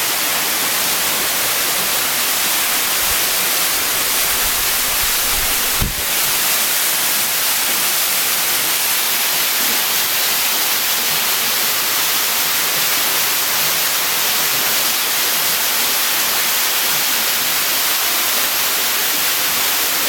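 Waterfall pouring down a rock face into a pool, a loud, steady hiss of falling water heard close up. A single brief thump about six seconds in.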